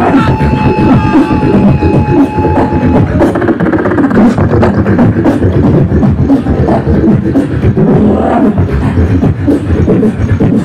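A beatboxer performing a dense, continuous rhythmic routine of mouth-made drum and bass sounds into a hand-held microphone, amplified through a PA. A single held high note rides over the beat for about the first three seconds.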